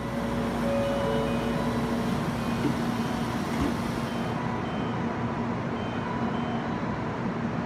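Steady hum and hiss of a Shinkansen train standing at a station platform, with one steady low tone running throughout and faint short high tones coming and going.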